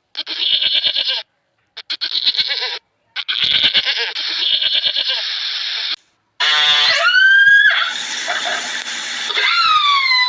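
Animal calls: three harsh, rapidly pulsing cries with short gaps between them, then drawn-out pitched calls that rise and fall.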